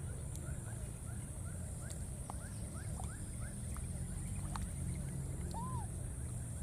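Outdoor wetland ambience: a steady low rumble and a steady high buzz, with a run of short rising chirps, about three a second, through the first few seconds and one arched call near the end.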